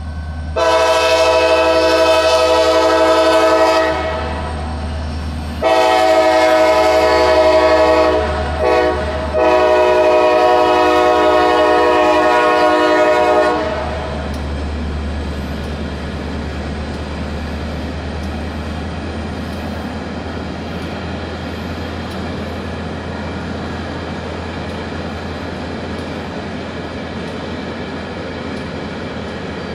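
Norfolk Southern freight locomotive horn sounding the grade-crossing signal: two long blasts, a short one and a final long blast. After that, the steady rumble of the loaded rock train rolling past.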